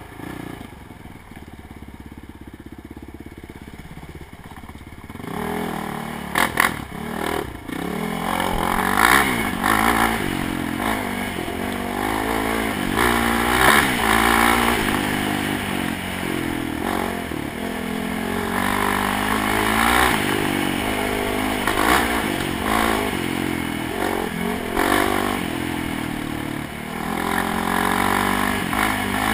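Quad ATV engine under way on a dirt trail, running quieter for about the first five seconds. It then revs up and down over and over as the quad accelerates and backs off. A few sharp clattering knocks come about six to seven seconds in.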